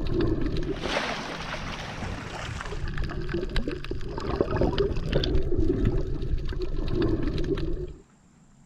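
Water sloshing and gurgling with small splashes, running continuously and then cutting off suddenly near the end.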